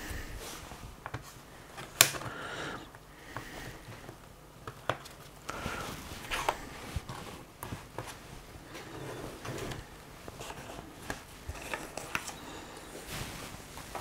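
Plastic spudgers prying at the seam of an LG Gram 16 laptop's bottom cover: occasional clicks and light scraping, the sharpest click about two seconds in.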